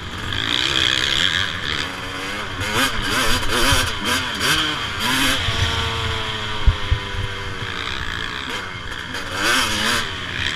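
Suzuki RM 250 two-stroke single-cylinder motocross engine revving up and down hard under the rider, with a long falling note near the middle as the throttle is rolled off. A single sharp knock comes about two-thirds of the way through.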